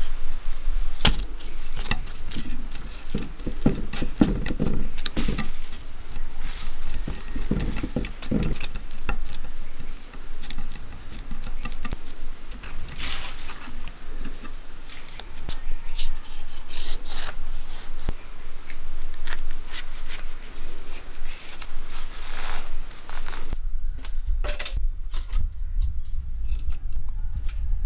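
Fresh vayana leaves crackling and rustling as they are folded by hand around sticky rice dough and pinned with a leaf stem, with many sharp clicks and scrapes. The handling noise thins out near the end, leaving a low rumble.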